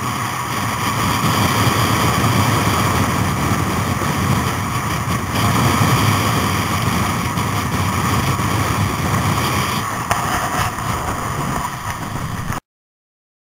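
Motorcycle engine running at road speed under heavy wind rush on the microphone. The sound cuts off suddenly near the end.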